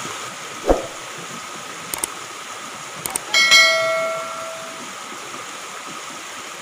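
A YouTube subscribe-button sound effect: a short whoosh, a few mouse clicks, then a notification-bell ding that rings and fades over about a second. Under it runs the steady rush of a small stream.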